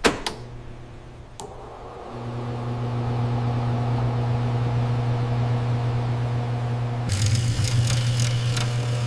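Microwave oven: a few clicks, then its steady low hum starts about two seconds in and keeps running. Near the end a burst of crackling pops sounds over the hum.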